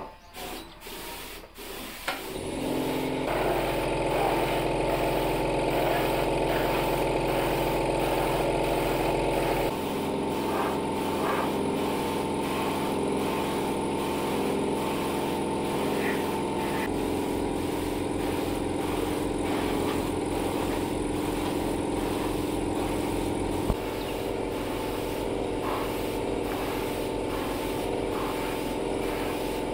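Small portable air compressor running steadily and driving a paint spray gun, with the hiss of the spray over the motor's drone. The sound comes in about two seconds in, and its pitch and tone change abruptly three times.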